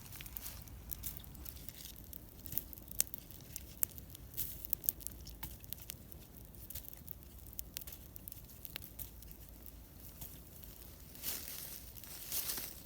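Wood campfire crackling, with scattered sharp pops that come most thickly a few seconds in. A short stretch of rustling comes near the end.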